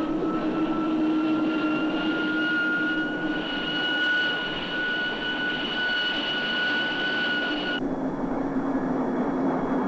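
Allison J33 turbojet of a Lockheed T2V-1 SeaStar running on the ground, a steady high whine over a low hum, the whine creeping slightly up in pitch. About eight seconds in the whine cuts off suddenly, leaving a lower steady rumble.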